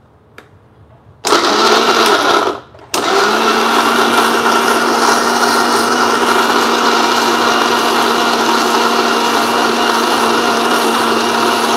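Electric mixer grinder with a steel jar grinding a wet mix of soaked oats, dates, almonds and banana into batter. It gives one short run of about a second, stops briefly, then runs again steadily for the rest of the time.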